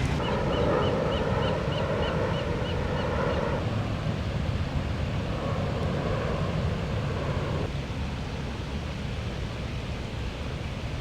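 Outdoor lakeside ambience: wind rumble on the microphone and rushing water from the lake's filtration system, strongest for the first few seconds, then weaker. A quick series of high chirps, about three or four a second, runs over the first few seconds.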